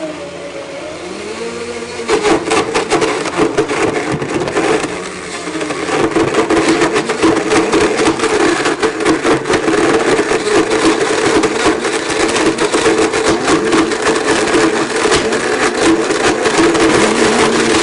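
Blendtec Total Blender motor running at high speed while it chops a rubber inner tube and tire sealant. It gets louder about two seconds in, and a constant rapid clatter of pieces hitting the jar runs under the motor.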